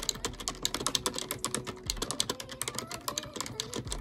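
Typing on a computer keyboard: rapid, uneven key clicks.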